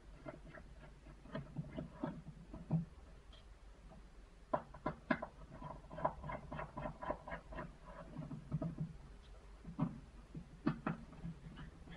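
Small screwdriver clicking and scraping in the screws and metal frame of a BlackBerry Bold 9790 as its screws are undone, in irregular small clicks with a quick run of ticks about midway.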